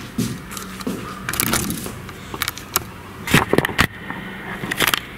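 Scattered sharp clicks and small knocks from hands handling an iPad and tapping its screen, some in quick clusters, over a low steady hum.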